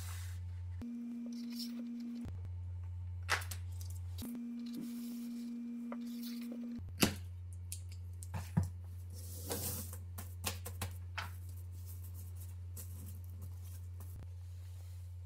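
Sharp snips and light metallic rustling as thin pure nickel strip is drawn off a coil and cut to length with snips: a single snip about three seconds in, then a run of them from about seven to eleven seconds, over a steady low hum.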